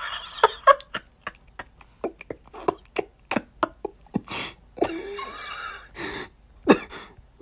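A rapid, irregular string of short clicks and brief clipped bits of voice, with a couple of slightly longer noisy stretches about four to five seconds in.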